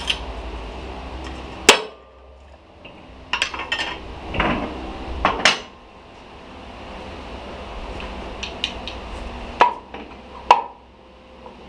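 Steel gearbox parts clinking and knocking as a gearbox main shaft with its gears is handled on the steel bed of a shop press: sharp metal-on-metal knocks at irregular times, the loudest a little under two seconds in, a few more in small clusters after. A low steady hum runs underneath.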